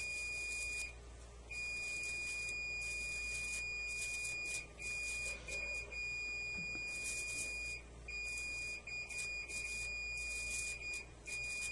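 Electrocautery unit's high, steady activation tone, sounding in long stretches broken by short gaps as the current is switched on and off, while the final cautery dries the base of a curetted basal cell carcinoma wound.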